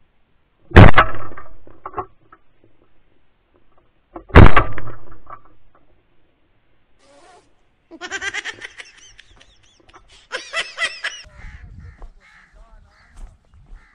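Over-under shotgun fired twice, about three and a half seconds apart, each shot a sharp blast with a short echoing tail. Later a bird calls in two quick series of loud, rapid notes.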